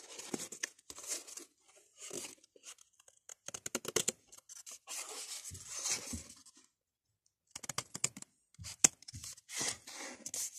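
Scissors cutting thin white card in irregular bursts of snips, with runs of quick crisp clicks and the card rustling as it is handled.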